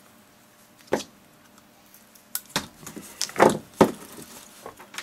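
Side cutters clicking and scraping against a windscreen washer pump's plastic casing and rusted motor can, with handling knocks. There is one sharp click about a second in, then a louder run of clicks and scrapes between about two and a half and four seconds.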